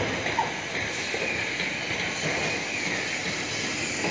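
Steady din of heavy construction machinery running, with a sharp knock right at the start.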